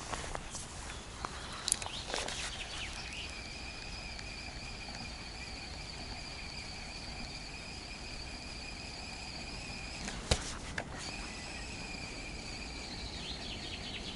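A swish of a cast about two seconds in. Then a spinning reel (Shimano Stradic FL 2500) gives a steady high whine as the lure is retrieved fast. It stops briefly with a click just after ten seconds, then winds on again.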